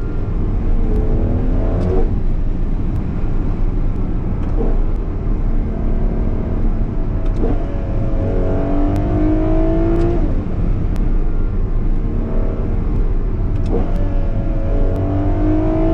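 Ferrari 12Cilindri's naturally aspirated V12 accelerating hard, its pitch climbing through each gear and dropping sharply at quick dual-clutch upshifts, about two seconds in, then around seven and a half and ten seconds, climbing again near the end. A steady low road rumble runs underneath.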